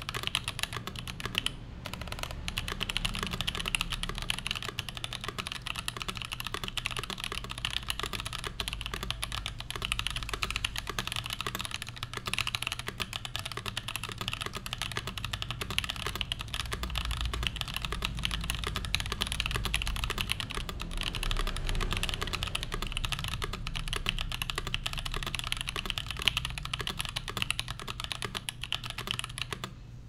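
Fast, continuous typing on an Exclusive E6.5 mechanical keyboard with lubed Boba U4T tactile switches on a brass plate in an O-ring mount, under GMK ABS keycaps: a dense stream of key strokes that stops right at the end.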